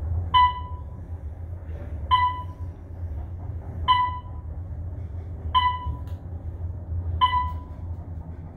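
Otis traction elevator car travelling upward with a steady low hum, while its floor-passing chime sounds five times, about every 1.7 seconds: one short, clear ping as each floor goes by.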